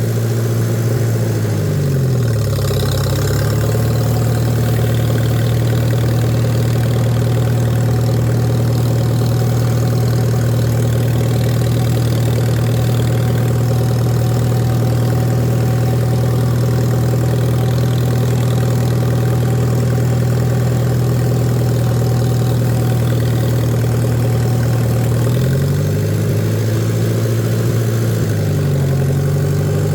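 Farmall A tractor engine running steadily. Its speed drops about two seconds in and holds there, then picks back up shortly before the end.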